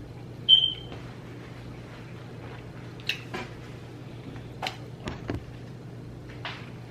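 Close-up mouth sounds of chewing a saucy sub sandwich: scattered wet smacks and clicks over a steady low hum, with one brief high squeak about half a second in.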